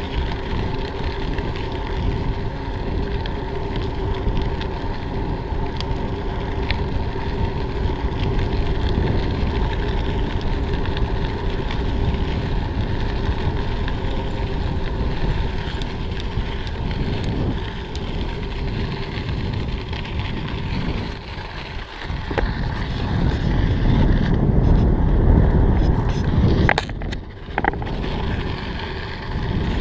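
Mountain bike rolling along a crushed-stone trail: steady tyre noise on the gravel mixed with wind rushing over the camera's microphone, with small rattles from the bike. It swells for a couple of seconds near the end.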